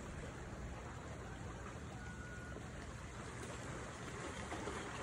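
Steady outdoor wash of wind and sea noise, with a brief faint high tone about two seconds in.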